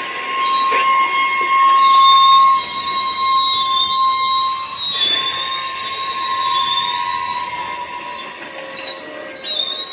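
Steel wheels of freight hopper cars squealing as they roll slowly around a curve: a steady high-pitched squeal in several tones that waver slightly in pitch, over the rumble of the cars, with a few wheel knocks near the end.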